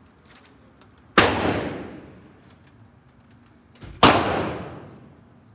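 Two loud gunshots about three seconds apart, each followed by a long echoing decay off the walls of an indoor shooting range. Faint clicks of cartridges being pressed into a pistol magazine come in between.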